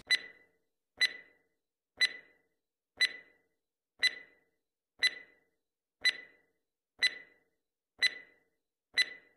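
Countdown-timer sound effect: ten short ticks one second apart, each a sharp click with a brief high ring, marking the seconds of a ten-second countdown.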